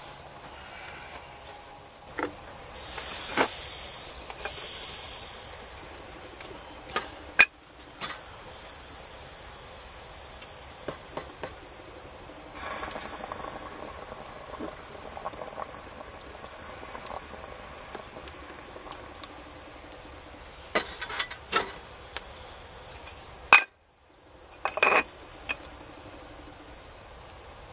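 Water boiling in a metal kettle on a barrel wood stove, hissing with steam in two spells, with scattered sharp metal clinks and knocks from the kettle and stove; the loudest knocks come about a third of the way in and shortly before the end, where a hand is at the kettle's lid.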